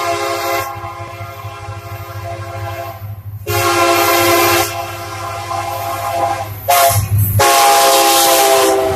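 Union Pacific freight train led by two EMD SD40-2 diesel locomotives, sounding its multi-chime air horn in several long blasts over the low rumble of the diesels. The blasts grow louder as it nears, the last one the loudest.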